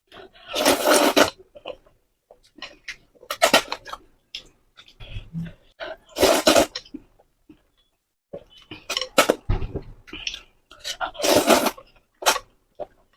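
Close-up eating sounds: several loud, noisy bursts a few seconds apart, with small clicks and mouth smacks between them.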